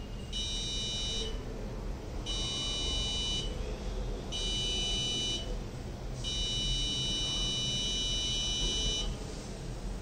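Arduino-driven electronic buzzer beeping out Morse code input from an eye-blink sensor. It gives three steady high-pitched beeps of about a second each, then a longer one of nearly three seconds.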